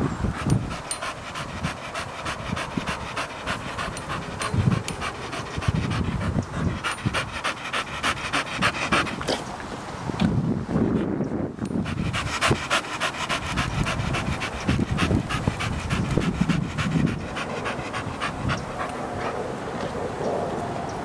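Blue Staffordshire bull terrier panting quickly and steadily close to the microphone, with a short pause about ten seconds in and a few low bumps.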